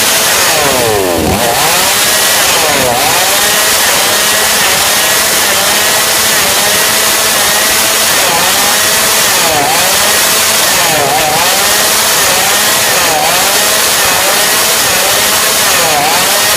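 TOPSUN 5600 two-stroke chainsaw running loudly at a steady engine speed, with no pause.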